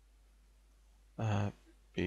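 Near silence with a faint low hum of room tone, then one short spoken word from a man's voice about a second in.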